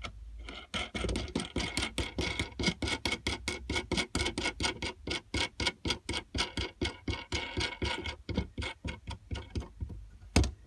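Ratchet spanner clicking steadily, about five clicks a second, as a nut is run down onto a bolt. One louder metallic knock near the end.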